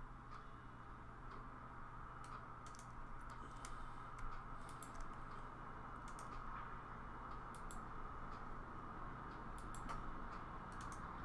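Scattered clicks of someone working a computer, about a dozen, often in quick pairs, over a steady low hum.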